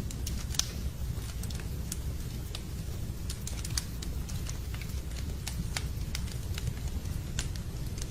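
Wood fire burning in a fireplace: a steady low rumble with irregular sharp crackles and pops from the burning logs, one louder pop about half a second in.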